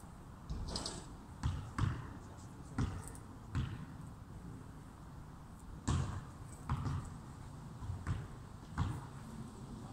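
A series of irregular dull thumps, about nine or ten at uneven intervals, some with a short sharp click on top.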